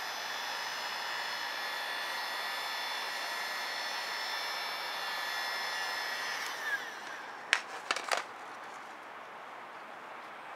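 Handheld heat gun blowing steadily with a high fan whine, then switched off a little past halfway, the whine dropping as the fan spins down; three sharp clicks follow. It is heating the edges of headlight protection film so they conform to the rounded corners.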